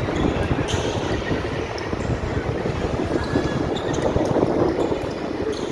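Steady rumbling noise of a volleyball rally in a gym hall, with a few sharp knocks of the ball being hit.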